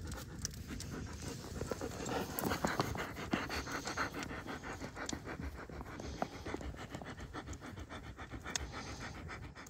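An 8-month-old German Shepherd panting steadily with her mouth open, in quick even breaths.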